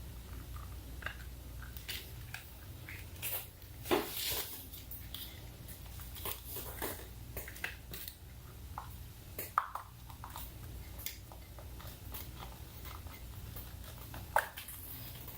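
Scattered clicks and small knocks of plastic parts and wiring connectors being handled and fitted on a motorcycle during a relay kit install, with sharper clicks about four, nine and a half and fourteen seconds in.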